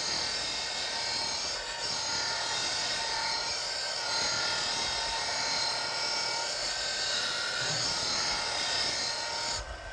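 Electric grinder running with a steel hedge-shear blade held to it, a steady high grinding hiss as the bevel is sharpened. It cuts off sharply just before the end.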